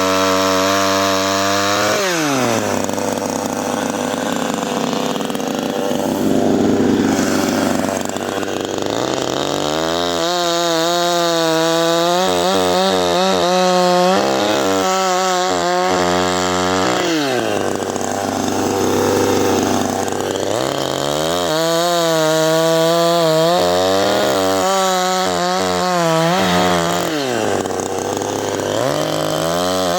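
CanFly 54.6 cc two-stroke chainsaw running at high revs. Its pitch drops and a sawing noise takes over as it goes into the wood, then the pitch climbs again as it comes free, several times.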